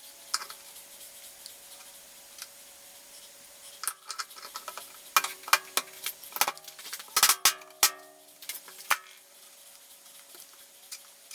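Steel axle-hub parts clinking and ringing as they are handled on the bench: a few light knocks, then a cluster of sharp metallic clinks in the middle, each leaving a short ring, over a faint steady hum.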